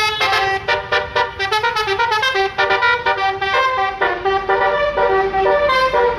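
A bus's basuri telolet horn, a multi-note musical air horn, plays a fast tune of short changing notes without a break.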